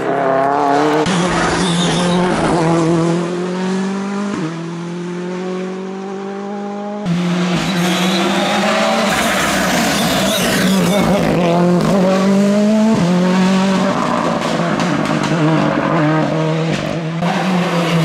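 Rally cars driven flat out, one after another. Their engines rev high and climb in pitch through the gears, drop back at each gear change, and tyres squeal. The sound changes abruptly about a second in, about seven seconds in and near the end, as one car gives way to the next.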